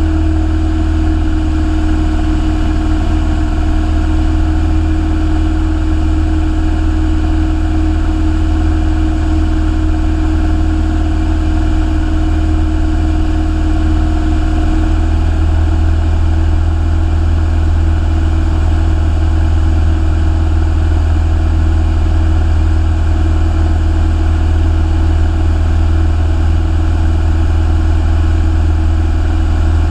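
Piston engine and propeller of a single-engine light aircraft, heard inside the cabin as a steady, loud drone in flight. The engine note shifts slightly about halfway through.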